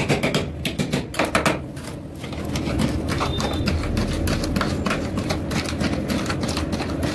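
Two metal spatulas rapidly chopping and scraping on a steel ice-cream cold plate, a fast clatter of taps as candy toppings are chopped into the frozen base. The strikes are loudest in the first second and a half.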